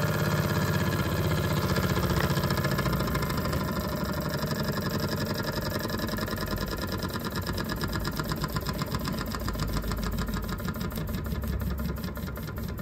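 Small model steam engine running down on its boiler's remaining steam after the hydrogen burner is shut off: its quick, even exhaust puffs gradually slow and fade, down to about four a second near the end.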